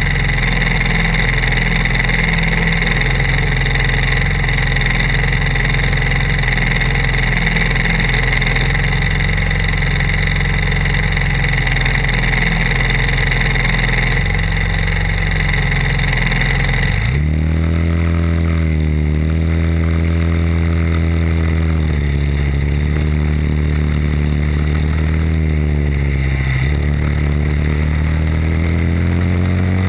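Briggs & Stratton four-stroke single-cylinder kart engine close to the microphone, idling steadily for about seventeen seconds. It then switches abruptly to running on track, its pitch rising and falling several times as the kart accelerates and lifts off.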